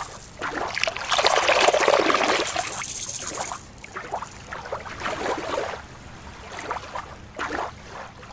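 Water splashing and trickling at the shoreline, with a louder rush of water from about a second in that drops away after about two and a half seconds, then softer intermittent sloshing.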